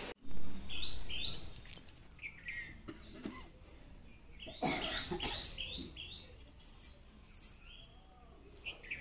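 Small birds chirping in short sliding notes. The chirps come in little groups: about a second in, a busier run near the middle, and a couple near the end. A brief low rumble comes just at the start.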